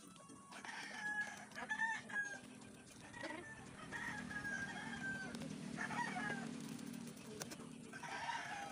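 Chickens clucking and a rooster crowing, several calls one after another with a longer drawn-out call in the middle.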